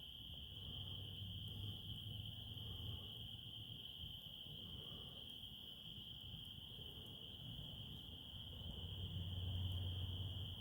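Chorus of insects, a steady unbroken high-pitched trill that does not change, with a low rumble swelling near the end.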